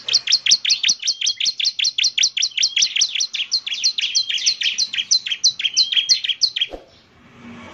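Bar-winged prinia (ciblek) song: a fast, even run of short, high, downward-sweeping chirps, about six a second, that breaks off about a second before the end.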